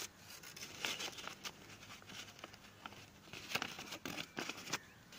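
Folded paper of a pinwheel rustling and crinkling as it is handled, with scattered small crackles.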